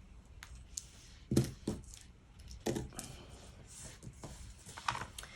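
About half a dozen short, sharp clicks and snips from small jewellery tools working beading wire, including wire cutters cutting the wire. The loudest comes about one and a half seconds in.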